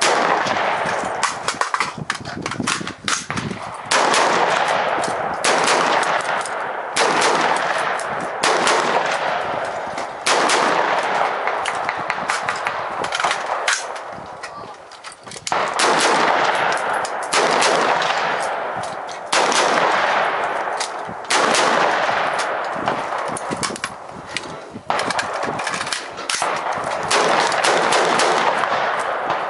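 AR-15 rifle fired in rapid strings of shots that echo, string after string, with a brief lull about halfway through.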